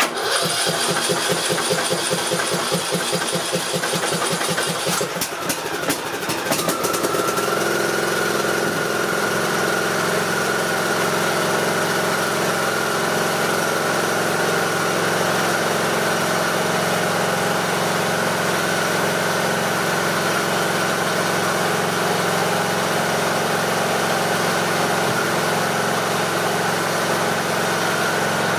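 Briggs & Stratton 18.5 hp Intek riding-mower engine cranked by its electric starter for about five seconds, with fast even pulses and a whine, catching about six seconds in and then running at a steady, even speed. The carburetor's pilot jet has just been cleaned to cure surging, and the speed holds without hunting up and down.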